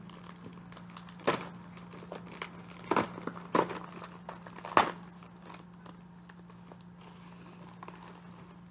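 Packaging being opened by hand, crinkling and tearing in several sharp bursts over the first five seconds, then quieter rustling.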